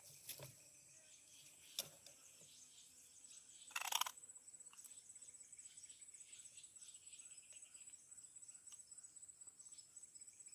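Faint insects, likely crickets, with a steady high whine and fast, even pulsing chirps. There is a single click about two seconds in and a short, louder noisy burst about four seconds in.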